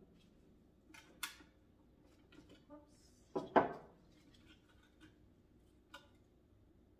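A few light knocks and rustles as a ceramic elephant planter and its plant are handled and set down on a wooden piano top, with a short exclamation of "Oops" about halfway through.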